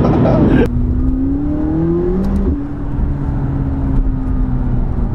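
McLaren 570GT's twin-turbo V8 heard from inside the cabin, over road rumble: the revs climb steadily under acceleration, then drop sharply with an upshift into third about two and a half seconds in and run on fairly level.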